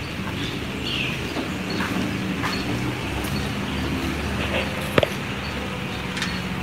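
Car engine idling steadily, with a single sharp click about five seconds in.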